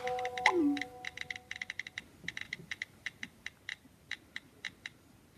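Faint, irregular clicking, a few clicks a second at first and thinning out toward the end. A few held notes and a short falling tone die away in the first second or two.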